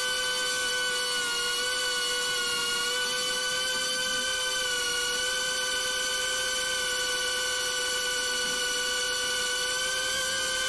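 Beta95X V3 cinewhoop's brushless motors and ducted 2.5-inch propellers whining in flight, a high multi-tone whine holding a nearly steady pitch with small wavers as the throttle shifts.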